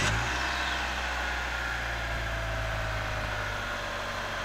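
A 1996 Mitsubishi Eclipse's 2.0-litre four-cylinder engine idling just after being started, settling to a steady idle and getting slightly quieter, with a faint whine that slowly falls in pitch.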